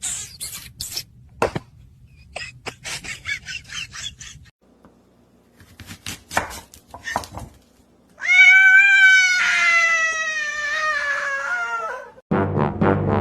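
Scattered clicks and scuffling, then a cat's single long, drawn-out meow lasting about four seconds and falling slightly in pitch. Brass music starts abruptly near the end.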